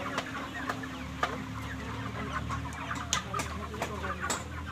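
Live chickens clucking repeatedly, with a few sharp clicks and a steady low hum underneath.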